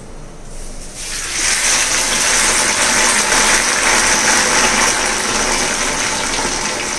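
Sliced okra sizzling in hot oil in a kadai, a loud, steady hiss of frying that starts about a second in as the okra hits the oil.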